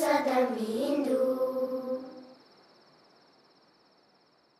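A lone unaccompanied voice sings the last line of a slow song, holding a final note that dips in pitch and dies away about two seconds in. Crickets chirr steadily underneath and fade out near the end.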